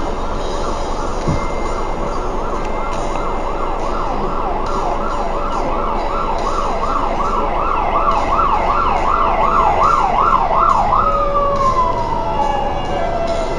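Fire engine siren approaching and growing louder, sounding a fast rising-and-falling yelp. About eleven seconds in it switches to a single slow falling wail, which begins to rise again near the end.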